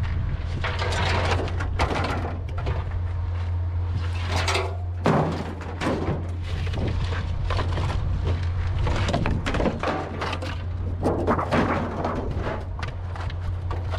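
Scrap sheet metal and debris being handled in a pickup truck bed, with irregular scraping, clanking and thuds as pieces are dragged and tossed. A steady low hum runs underneath.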